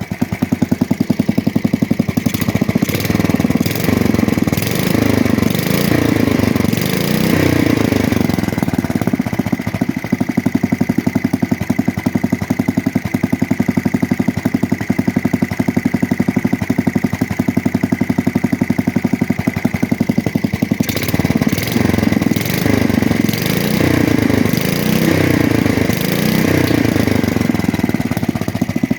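A 1966 Custom 6 garden tractor's small single-cylinder engine, out of the tractor, running steadily with a rapid even firing beat. Its speed wavers up and down a few times, once a few seconds in and again after about twenty seconds.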